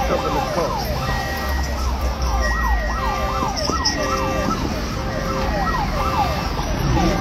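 Tires squealing in a wavering, overlapping screech as cars spin donuts, over a low engine rumble.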